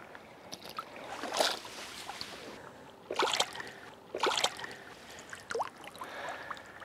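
Shallow water splashing in three short bursts as a flathead is lowered into the river and let go by hand.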